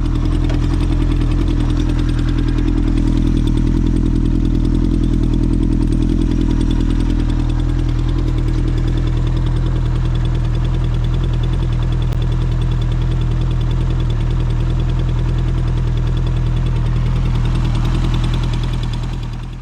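Honda CB900F's air-cooled inline-four engine idling steadily, fading out at the very end.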